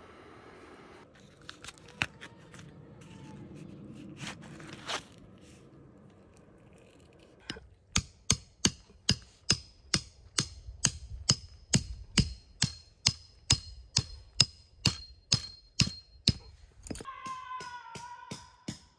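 Metal tent peg being hammered into gravelly ground with the back of a hatchet head: a rapid, even run of blows, about three a second, each with a metallic ring. The run lasts about eight seconds and is preceded by a few scattered clicks and a scrape.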